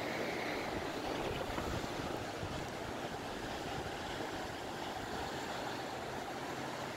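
Gusty wind rushing steadily through trees, with some low rumbling buffeting of wind on the microphone.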